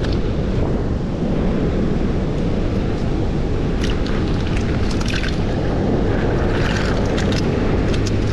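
Steady wind noise on the microphone over surf wash, with a few clicks of pipi shells knocking together as handfuls are sorted into a plastic bucket, around four to five seconds in and again near the end.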